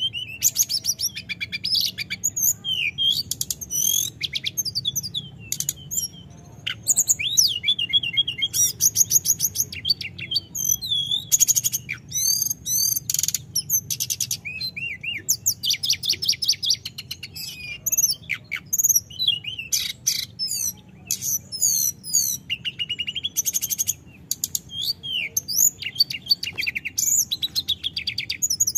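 Hill blue flycatcher singing its full, rolling song: a rapid, varied stream of high chirps, trills and whistled slurs with only brief pauses.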